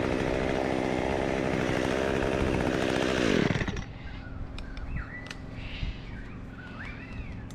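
Chainsaw running at high revs, then let off about three and a half seconds in, its engine falling quickly in pitch to a quieter idle.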